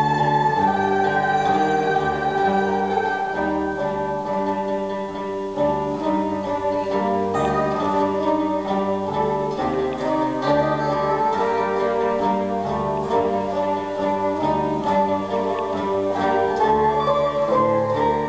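A taishōgoto ensemble, a dozen or so Japanese keyed zithers, playing a melody together over a low bass line.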